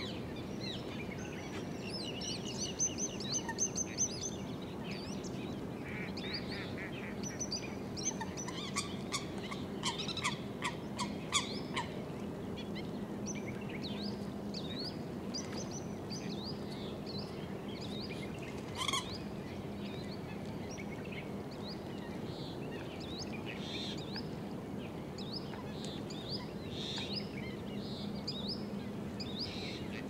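Wetland birds calling: a steady mix of short chirps and whistles, with a run of rapid, evenly spaced louder calls from about eight to eleven seconds in and one sharp call a little later, over a steady low hum.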